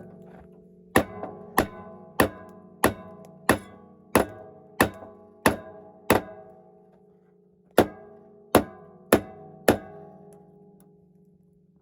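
Hammer blows on a red-hot rebar knife blank over an anvil, forging the blade: sharp, evenly paced strikes about one and a half a second, each leaving a ringing metallic tone. The blows stop briefly past the middle, then four more follow and the ring dies away near the end.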